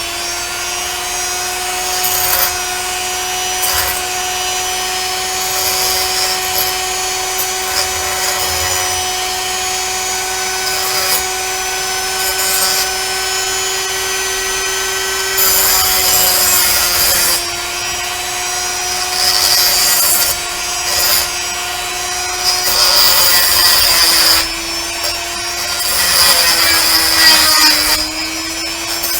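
Handheld rotary tool running at a steady high whine while a bit grinds the mould lines off a pewter cast, with harsh scraping in repeated bursts where the bit bites into the metal; the motor's pitch sags a little under the load near the end.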